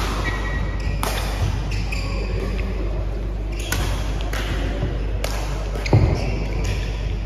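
Badminton doubles rally: rackets strike the shuttlecock with sharp cracks every second or so, with a short shoe squeak on the court mat near the start and a heavier thud about six seconds in.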